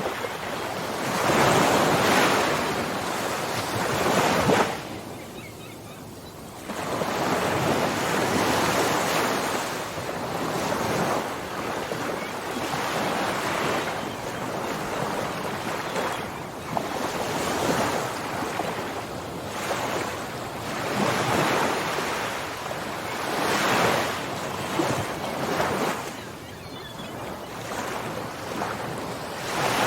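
Ocean waves breaking and washing up the shore in slow, repeated surges, with a brief lull about five seconds in.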